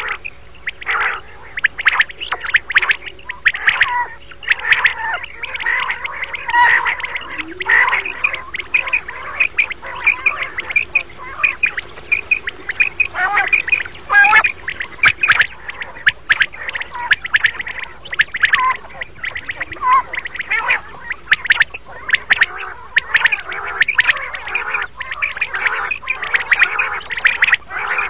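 Common quail calling: a dense, unbroken run of short calls, several birds' calls overlapping one another.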